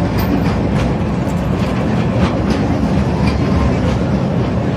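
Mini train running along its track: a steady rumble with irregular clacks of the wheels over the rail joints.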